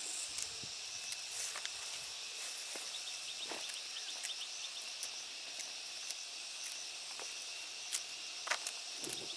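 A steady, high insect chorus, with a run of faint chirps about three seconds in. Scattered light clicks and knocks from handwork or footsteps sound over it, the sharpest near the end.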